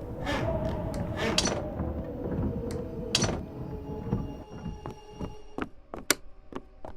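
Horror foley: a creaking, wavering sound with a few sharp knocks. About two-thirds of the way through it gives way to a series of separate sharp, ringing notes.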